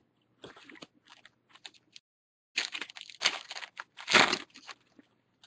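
Foil wrapper of a baseball card pack being torn open and crinkled by hand: faint rustling at first, then a run of louder crinkling from about halfway through.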